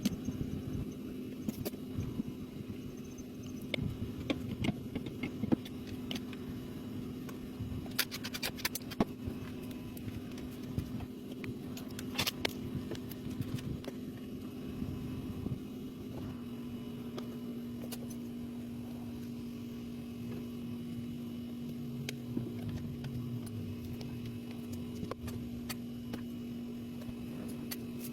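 Ford Escape engine idling with a steady hum that steps up slightly about halfway through, with scattered light clicks and clacks in the first half.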